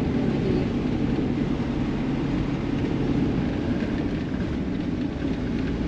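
Campervan engine and road noise heard from inside the cab, a steady drone as the van climbs a steep mountain pass.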